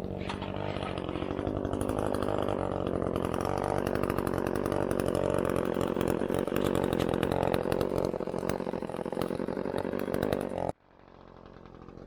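Two-stroke chainsaw running at high revs for about ten seconds, then shut off abruptly.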